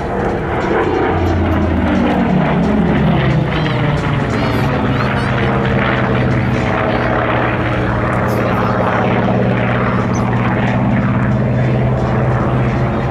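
F4U Corsair's Pratt & Whitney R-2800 radial and P-38 Lightning's twin Allison V-12 engines droning as the two propeller warbirds fly past overhead, the pitch dropping over the first couple of seconds as they go by, then holding steady as they climb away.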